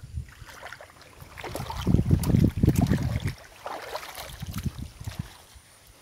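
A hooked peacock bass thrashing and splashing at the water's surface in the shallows, in irregular bursts. The splashing is heaviest between about one and a half and three seconds in, then weaker.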